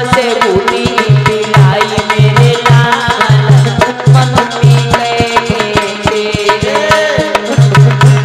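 Indian folk devotional music (bhajan) played loud through loudspeakers: a hand drum beats a fast, steady rhythm with deep repeated strokes under held melody notes, without singing.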